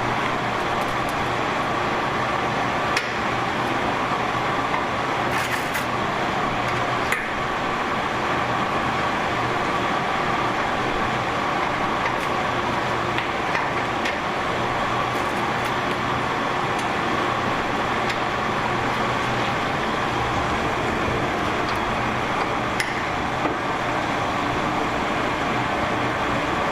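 Steady machine hum and noise, with a few light clicks scattered through it.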